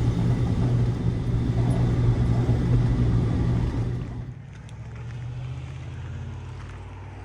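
Vehicle engine and road noise heard from inside a moving camper, a steady low drone. About four seconds in it drops suddenly to a much quieter low hum.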